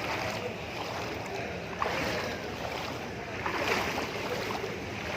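Steady rush and slosh of floodwater around a moving bus, with vehicle noise beneath and a short sharp click about two seconds in.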